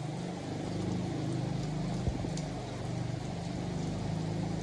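Steady rain hissing, under a stronger low droning hum that wavers slightly in pitch; a faint tick about two seconds in.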